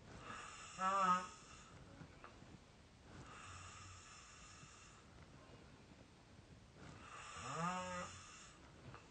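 A sleeping person snoring with a squeaky, pitched snore: two wavering snores about six and a half seconds apart, the first the louder, with a softer breath between them.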